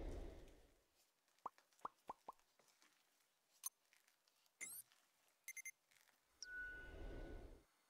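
Quiet sound effects for an on-screen like-and-subscribe animation: four quick plops, then a click, a quick rising swish and a few bright pips. Two soft whooshes come at the start and near the end.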